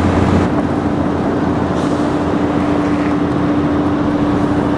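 City street traffic noise with a car passing, under a steady hum.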